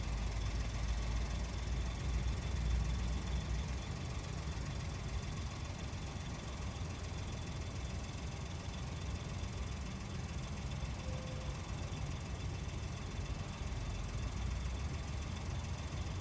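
Steady low rumble with a light hiss of outdoor background noise, with a brief faint tone about eleven seconds in.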